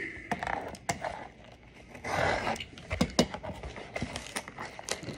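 Hands handling and opening a cardboard trading-card box: scattered clicks and taps of the cardboard, with a short burst of rustling about two seconds in and quicker small ticks after that.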